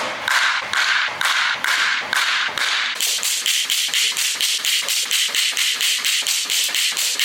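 Wood-composite bat cracking against pitched baseballs in a rapid, even series of sharp hits, about three a second. About three seconds in the hits come faster and sound higher.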